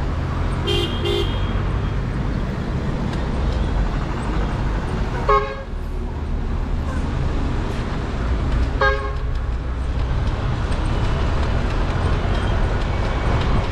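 Vehicle horns sounding over steady wind and road noise: two quick short toots about a second in, then two louder single honks about five and nine seconds in.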